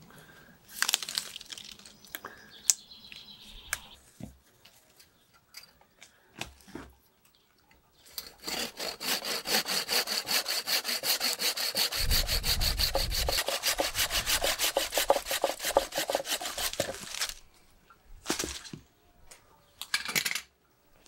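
Hand saw cutting through a thick ficus branch in quick, even back-and-forth strokes for about nine seconds, starting about eight seconds in. Before the sawing come a few brief rustles and snaps of leaves and twigs being handled.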